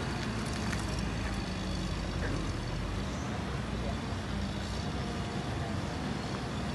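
Steady low engine rumble, with road traffic noise.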